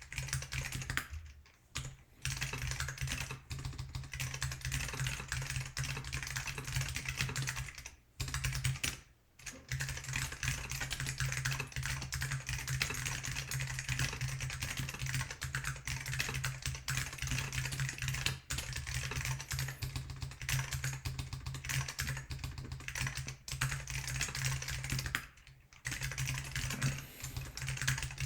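Continuous typing on a GeonWorks F1-8X mechanical keyboard with lubed Alps SKCM Salmon switches, a carbon-fibre plate and IBM 5140 keycaps: a dense run of clacking keystrokes. It pauses briefly about a second in, around eight to nine seconds in, and again near the end.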